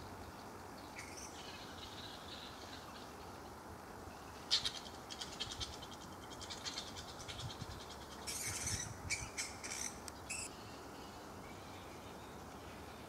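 Small birds chirping and trilling in short bursts, most of them from the middle to near the end, over a low steady background.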